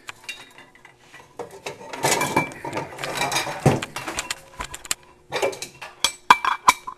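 Metal gas burner parts being handled and fitted together: rattling and scraping of the burner cap and base, then several sharp metallic clinks near the end as the pieces knock together.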